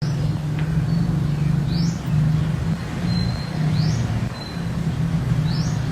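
A steady low drone with short breaks, and a bird giving short rising chirps about every two seconds, with a few brief high whistles between them.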